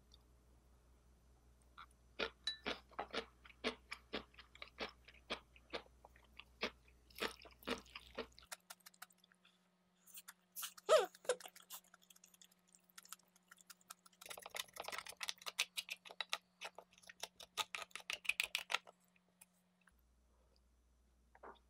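Close-miked chewing and crunching: a bite of kimchi chewed in quick crunchy clicks, then mouthfuls of fried rice from a wooden spoon. There is one sharper click about eleven seconds in.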